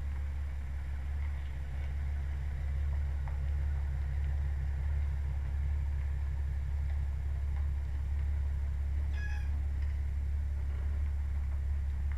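A truck engine running steadily with a low rumble as it slowly tows a trailer loaded with a wooden cabin. A short high chirp comes about nine seconds in.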